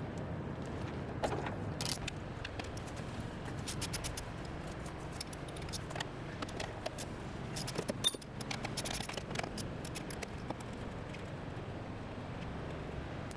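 Hand tools clinking and clicking on the 14 mm top-mount nuts of a Honda Civic front strut as they are undone, with a sharper metal knock about eight seconds in.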